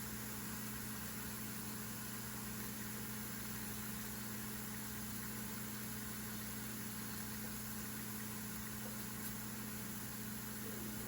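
Steady low hum of a small electric motor or fan, unchanging throughout, over a faint even hiss.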